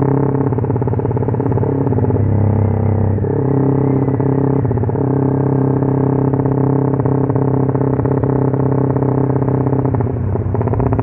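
Motorcycle engine running on a Juken 5 ECU "helicopter" setting: a loud, steady, rapid chopping beat from the exhaust.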